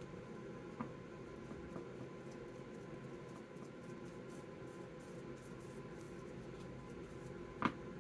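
Faint scratching of a paint brush working paint onto a resin chess piece, over a steady low hum. There is a small tap about a second in and a sharper tap near the end.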